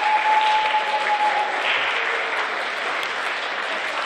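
An audience of schoolchildren and staff clapping. A thin, steady high tone sounds over the clapping for about the first second and a half.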